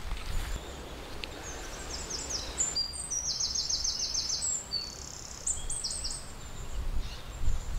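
A small wild bird singing: a string of high chirps with a fast trill in the middle, fading out near the end, over a quiet outdoor background.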